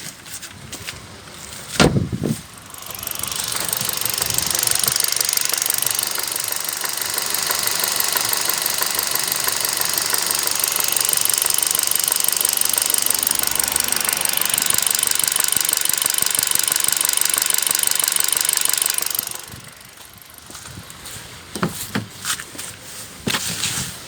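Kia Rio 1.4-litre four-cylinder engine idling hot, heard under the open bonnet, with a light knock that comes and goes; a service shop took it for a worn connecting rod. A thump comes about two seconds in, the engine sound is loud until it drops away sharply near the end, and a few clicks follow.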